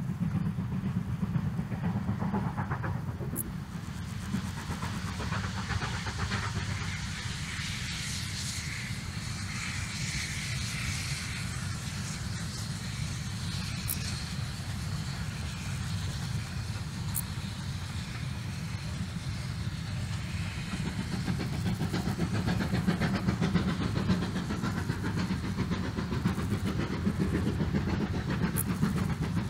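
Steam locomotive hauling a train of passenger coaches past at a distance: a steady rumble with the hiss of its exhaust and steam, the hiss strongest early on and the rumble growing a little louder near the end.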